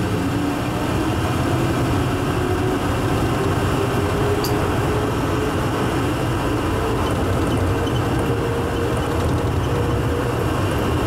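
Inside a rubber-tyred airport people-mover car running through a tunnel: a steady rumble of tyres and running gear. Over it, a motor whine rises in pitch for the first few seconds and then levels off.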